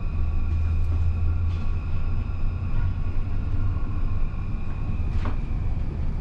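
Inside the Incheon Airport maglev train's car while it runs between stations: a steady low rumble with a steady high whine over it, and a faint click about five seconds in.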